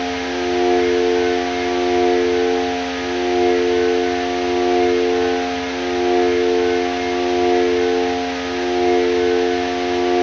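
Korg Volca Modular synthesizer playing an FM drone: several held tones over a steady hiss, the whole sound swelling and dipping in loudness about every second and a half.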